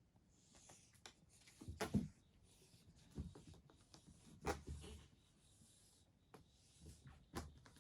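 Faint scratching and rubbing with scattered soft knocks and clicks, from cats moving about and playing; the clearest knocks come about two seconds in, near the middle and near the end.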